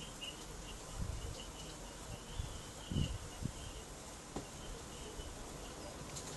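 Faint high chirring of an insect in short broken bursts, with a few low thumps on the microphone about one and three seconds in.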